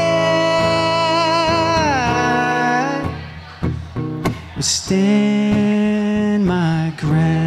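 Live male singing with guitar. A long, high sung note with vibrato is held and falls away about three seconds in. After a few guitar strokes, a lower note is held from about five seconds in.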